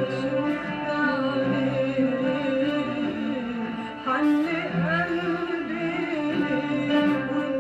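Arabic song playing: a sung melody with long held, ornamented notes over an instrumental accompaniment.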